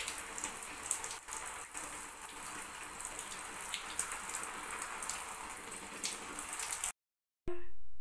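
Shower running, its water spraying down over a hand and wet birds into the tub below as a steady hiss and patter; it cuts off abruptly about seven seconds in.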